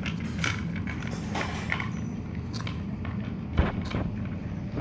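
Light clicks and rustles of a small kitten moving and nosing about on cardboard, with one louder bump about three and a half seconds in, over a steady low hum.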